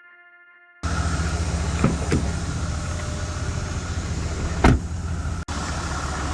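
Steady low rumble of a car's engine and road noise heard from inside the cabin while driving, with a few light clicks and one sharper knock about four and a half seconds in.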